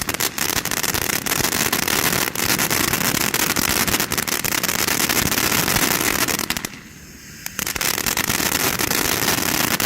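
A 500-gram fountain firework burning with a loud, steady spray hiss and many crackling pops. The sound briefly drops out about seven seconds in, then starts again.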